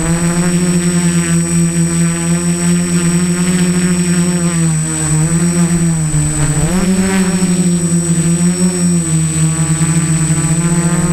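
Electric motors and propellers of a small home-built tricopter buzzing in flight, picked up close by the keychain camera riding on it. The pitch sags twice around the middle as the throttle changes, then swings back up, with a constant thin high whine over it.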